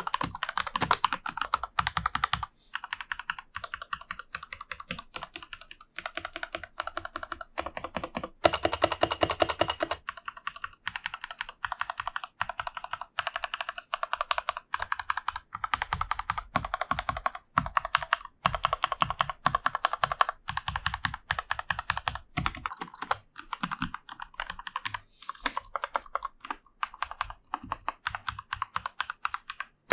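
Fast typing on a Rosskey R1 Lite 60% mechanical keyboard with Gateron G Pro switches and double-shot PBT keycaps: a rapid run of key clicks and clacks with a few brief pauses.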